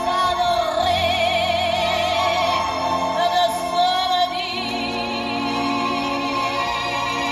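A recorded song plays: a singer holds long notes with wide vibrato over instrumental accompaniment.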